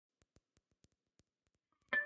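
Near silence with a few faint clicks, then instrumental intro music starts just before the end: repeated notes over a held tone.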